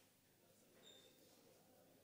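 Near silence: faint room tone of a hall, with one brief faint high-pitched squeak about a second in.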